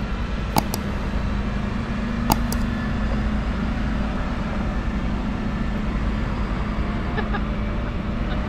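Diesel engines of army trucks running steadily as the trucks drive across the paddock, a constant low rumble. Two short, sharp clicks stand out in the first few seconds.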